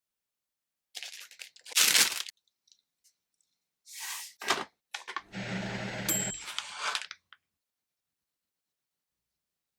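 Plastic food packaging being torn open and crinkled in a few short bursts. A brief low hum comes in about five seconds in.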